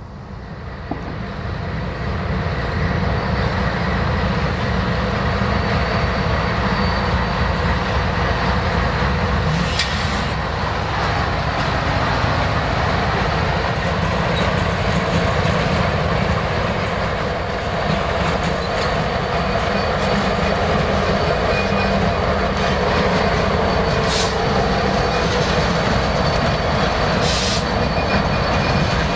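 Diesel freight locomotives passing close by, led by a GE C44-9W with EMD units trailing, their engines running loud and steady. The sound swells over the first two seconds as they draw near. Three brief high-pitched sounds cut through, about a third of the way in and twice near the end.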